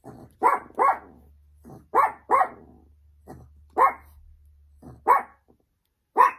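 Small Chihuahua barking repeatedly: about seven sharp barks, some in quick pairs, with quieter yaps between.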